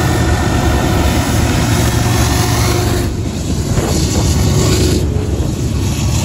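Freight train's diesel locomotives running as they pass beneath, a steady low engine rumble with broad noise over it.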